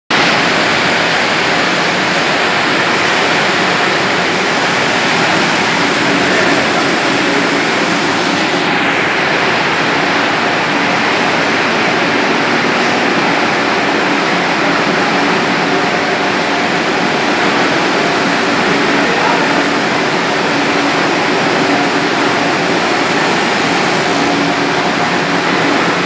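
Industrial continuous microwave conveyor dryer running. Its rows of cooling fans give a loud, steady rush of air noise, with a faint even hum underneath.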